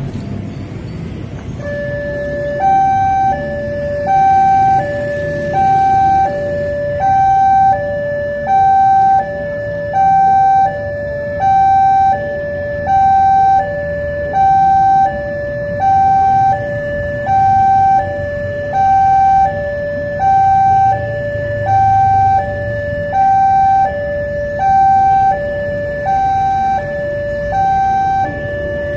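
Railway level-crossing warning alarm sounding its two-tone electronic signal, a higher and a lower tone alternating about once a second, starting about two seconds in. It warns road traffic as the barriers close for an approaching train. Road traffic rumbles underneath.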